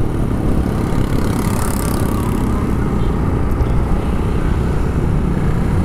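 Steady low rumble of wind and road noise on the microphone of a moving motorcycle, with the bike's running underneath.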